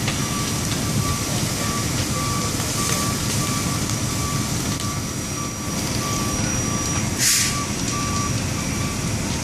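Truck reversing alarm beeping steadily, about one and a half beeps a second, over a dense low rumble of running engines. A short hiss of air, typical of an air brake, comes about seven seconds in.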